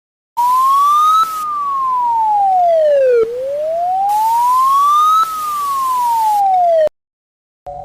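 Emergency alarm siren in a slow wail: one clean tone rising and falling twice, each sweep taking about four seconds, over a steady hiss. It starts suddenly and cuts off abruptly.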